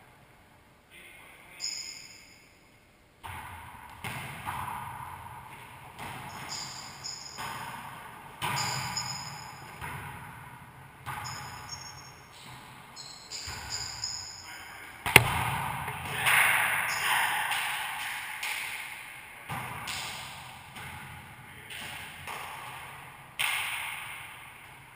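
Wallyball rally in a racquetball court: the ball struck by hands and rebounding off the walls in a string of echoing thumps, the sharpest smack about fifteen seconds in. Sneakers squeak briefly on the hardwood floor several times.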